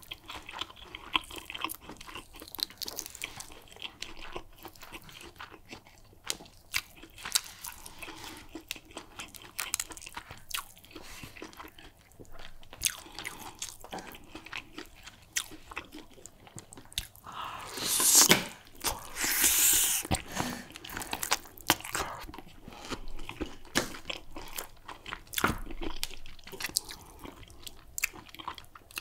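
Close-miked mouth sounds of biting, chewing and gnawing on a meat bone covered in egusi soup: many short wet clicks and crunches, with one louder, longer rush of noise about two-thirds of the way in.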